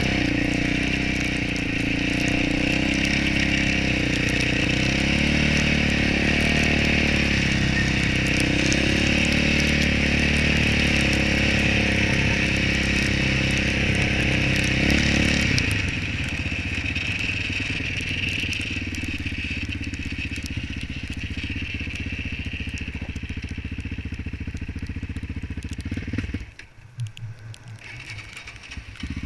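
Yamaha Raptor 700 quad's single-cylinder four-stroke engine running under steady throttle, then easing off to a quieter, lower note about halfway through. Near the end it drops away almost completely for a couple of seconds, then picks up again.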